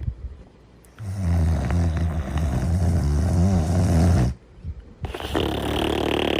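Snoring in sleep: after a quiet first second comes a long, low, loud snore lasting about three seconds, then a short pause and a breathier, hissing breath near the end.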